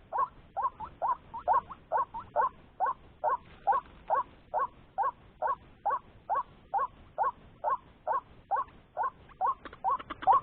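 White-breasted waterhen calling: a steady run of short, rising croaking notes, about two or three a second. Near the end a quicker, harsher series of notes joins in.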